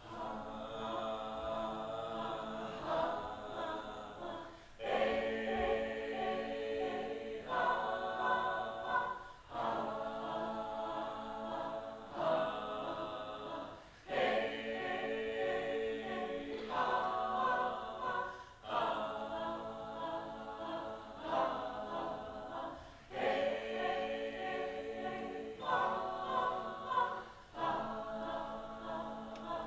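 Choir singing unaccompanied, holding sustained chords that change every two to three seconds in a repeating sequence.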